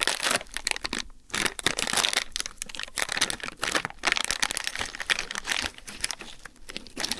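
Plastic packaging crinkling and rustling as it is handled and pulled open, a rapid irregular crackle with brief pauses near one second and four seconds in.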